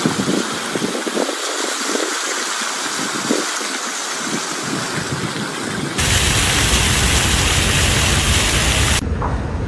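Steady rushing and splashing of water from a large park fountain. The sound jumps louder and deeper at about six seconds and drops back abruptly about three seconds later.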